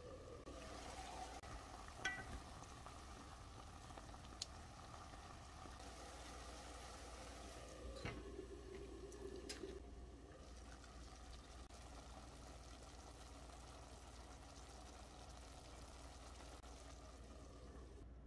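Pot of seasoned soybean sprouts simmering faintly under a loosely set glass lid, with a few light clicks along the way.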